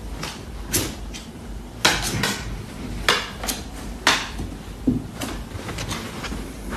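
A puppy's paws and claws knocking and clicking on a hard pet ramp as it climbs, in scattered sharp knocks about once a second.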